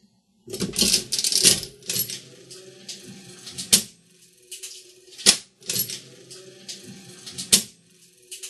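Mechanical slot machine mechanism, out of its case, being worked by the handle: a burst of metallic clatter as the main arm pushes the clock forward and winds it up, then three sharp single clicks a second or two apart over a steady low hum.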